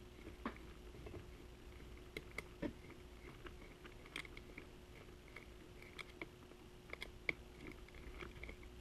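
Small screws being started by hand into the motor mount of an RC car: scattered faint clicks and ticks of small metal parts and tools being handled, over a faint steady hum.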